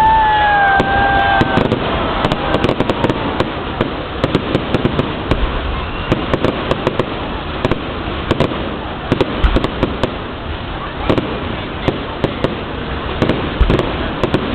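Fireworks display going off, with dense rapid crackling and popping and scattered heavier bangs throughout. A short, slightly falling whistle comes right at the start.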